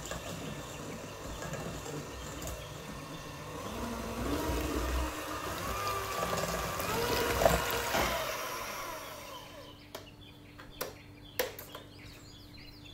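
Electric mixer whisking eggs and sugar for a génoise sponge batter until it doubles in volume: a steady whirring that grows a little louder, then stops about nine seconds in. A few light clicks follow near the end.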